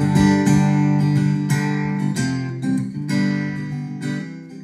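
Epiphone Masterbilt Century archtop guitar, spruce-topped, strummed in a steady run of chords that fade out gradually toward the end.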